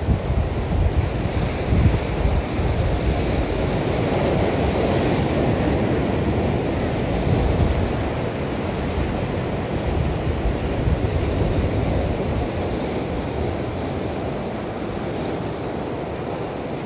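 Ocean surf washing and breaking against shoreline rocks, a steady rush of water, with wind buffeting the microphone in gusts, strongest in the first few seconds.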